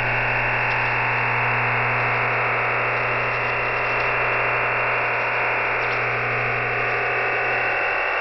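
EasyDRF digital data transmission received over shortwave radio: a steady, even hiss of many OFDM carriers packed into a sharp-edged band, with a steady low hum beneath it. It is the sound of image and text files being sent to the decoder.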